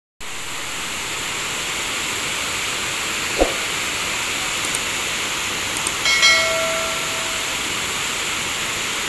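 Waterfall rushing: a steady, even hiss of falling water. A short sound breaks it about three and a half seconds in, and a held high tone lasts about a second and a half around six seconds in.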